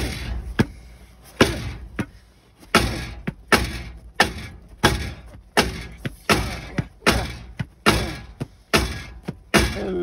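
Rubber mallet beating on a Nissan Titan's catalytic converter from underneath: a steady run of thuds, about three every two seconds, each with a short metallic ring. The blows are meant to knock loose the clogged junk inside the converter so it can be blown out the exhaust.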